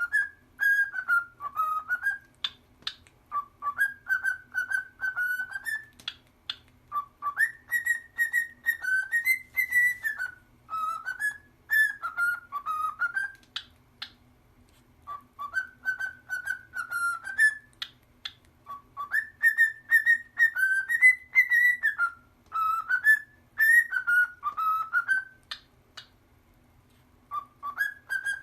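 A pet parrot whistling a tune: the same short melody of rising and falling whistled notes, repeated phrase after phrase with brief pauses between. A faint steady low hum sits underneath.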